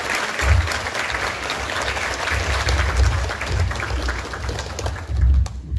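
Audience applauding, many hands clapping steadily, then stopping abruptly at the very end.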